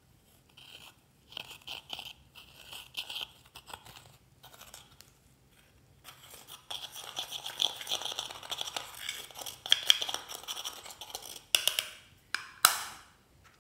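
A metal tool scraping and crumbling pressed shimmer eyeshadow inside its plastic compact: gritty scratching in short bursts at first, then steadier, denser scraping, with a couple of sharp taps near the end.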